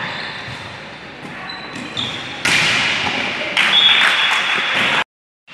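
Volleyball being struck and bouncing on an indoor court, sharp slaps and thuds among the players' voices, echoing in a large gym hall. The sound cuts out completely for a moment near the end.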